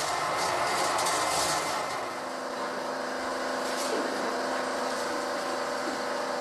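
Cassava-processing machinery running, a motor-driven drum turning. It gives a rough, noisy churn for about the first two seconds, then settles into a steady, even hum.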